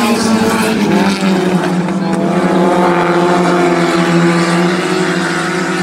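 Several four-cylinder stock car engines running together at high revs as the pack races around the track, their pitch wavering slightly.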